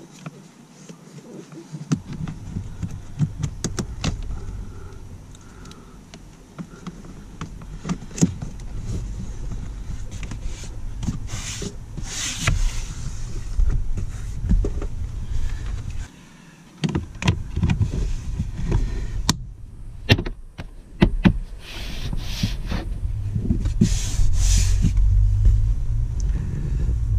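Hands working a ribbed plastic hose and plastic trim along a car's door sill: scattered clicks, knocks and scraping, over a steady low rumble that drops out briefly about halfway through.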